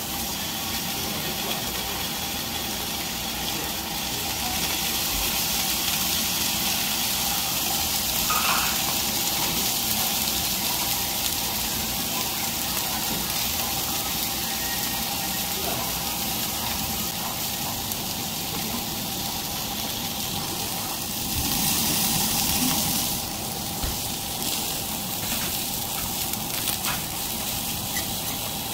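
Beef sirloin steaks sizzling on a hot cast-iron grill pan: a steady hiss that comes in as the first steak goes down, swelling louder for a couple of seconds about three quarters of the way through.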